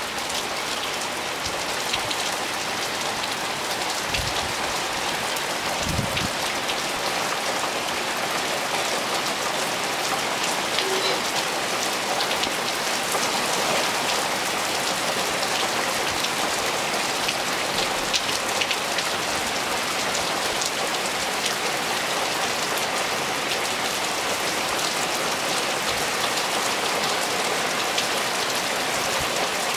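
Hard rain falling into a swimming pool, countless drops hitting the water surface in a steady, dense hiss.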